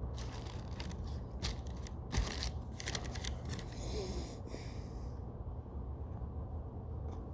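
Scissors snipping and cutting through a foam squishy: a run of short, sharp snips and crunchy cuts that thins out after about five seconds, over a steady low hum.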